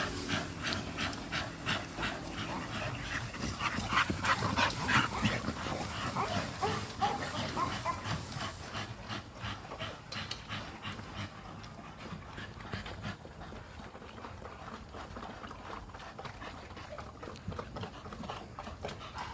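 American bully dogs panting, with some whimpering, busier and louder in the first half.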